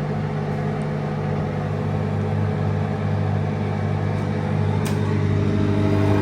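New microwave oven running on a test heat, a steady low hum. A few higher steady tones join in about five seconds in.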